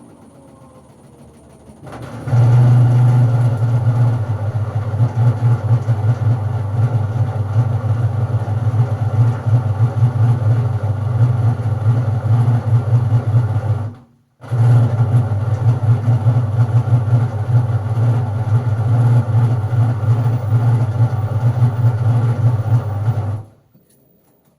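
LG washing machine making a loud, steady engine-like drone, its 'racing noises'. The drone starts suddenly a couple of seconds in, cuts out for a moment about halfway through, and stops shortly before the end.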